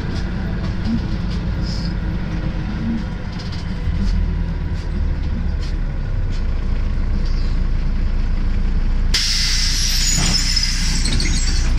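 Inside a MAZ 105 city bus under way: a steady low engine and road rumble with light rattles. About nine seconds in, a sudden loud hiss of compressed air is released from the bus's air system.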